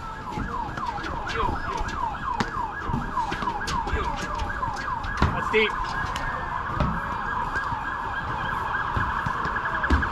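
Emergency vehicle siren in a yelp, each sweep falling in pitch, about three a second, quickening to a faster warble in the second half.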